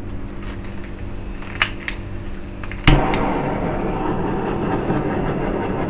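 Handheld gas torch being lit: a sharp ignition click about a second and a half in, a second click near three seconds as it catches, then the steady hiss of the flame, played over wet poured acrylic paint to pop the air bubbles.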